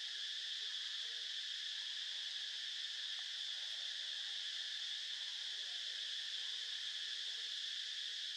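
Steady insect chorus in the surrounding forest: an unbroken, high-pitched drone at an even level.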